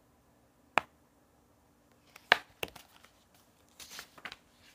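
Pages of a paperback book being handled and turned: a single click just under a second in, then a run of short paper rustles and clicks over the next couple of seconds.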